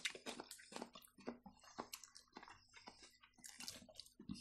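Faint chewing and mouth sounds of someone eating napa-cabbage rolls: short, irregular clicks and smacks, a few a second.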